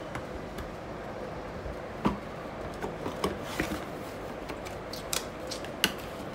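Scattered clicks and taps of things being handled on a table, the sharpest about two seconds in and near the end, over a steady low hum.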